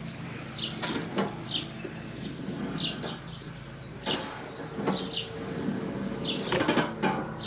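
A small bird's short, high chirps, each a quick falling note, repeating every half second or so, over faint knocks and handling clicks.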